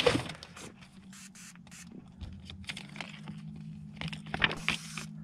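An adhesive paper fish-measuring ruler sticker is handled, peeled and pressed onto a cooler lid: irregular crinkling and scraping, loudest about four and a half seconds in.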